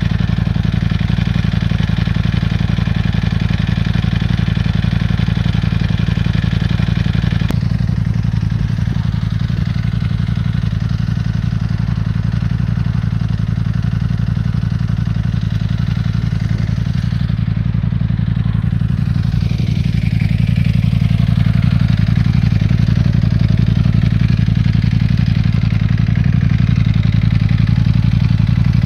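Ducati Panigale V4 S's V4 engine idling steadily through its exhaust, a deep, even running note. The higher part of the sound drops away about seven seconds in, and it grows slightly louder about twenty seconds in.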